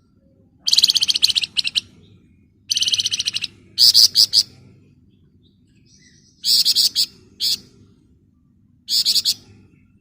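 Flamboyan songbird singing in five quick bursts of dense, rapid trilling and chattering notes (the 'ngebren'/'nyerecet' song), with short pauses between bursts.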